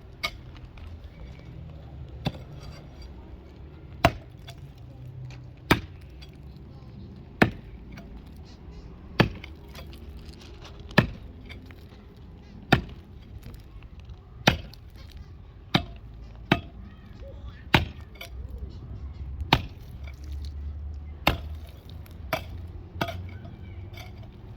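Sharp single impacts, one every second and three-quarters or so, that come closer together near the end, over a low background rumble.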